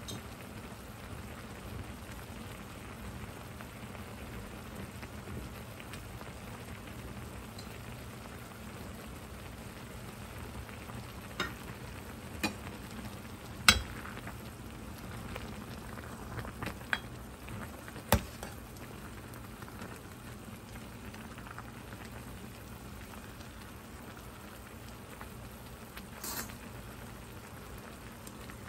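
Pot of fish cake soup bubbling at a steady boil, with several sharp clinks of a stainless steel ladle against the pot a little before halfway through, the loudest near the middle, and one more near the end.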